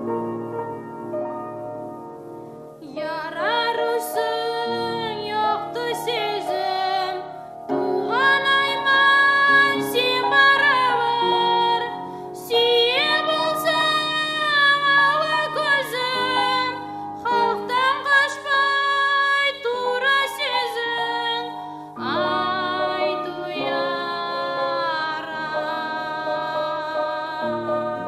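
A woman singing a song over sustained instrumental accompaniment. The accompaniment plays alone at first, and the voice comes in about three seconds in and sings in long held phrases.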